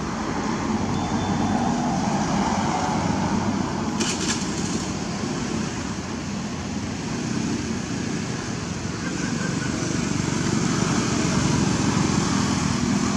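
Steady outdoor rumble of road traffic, swelling slightly toward the end, with a short click about four seconds in.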